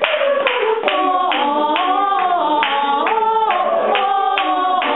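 Mixed high school madrigal choir singing a cappella in parts, holding chords that shift in pitch, over a regular pulse about twice a second.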